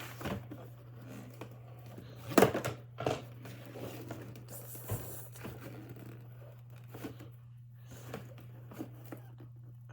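Box packaging being pulled apart by hand: irregular rustling, tearing and crinkling with a few sharper knocks, the loudest about two and a half seconds in.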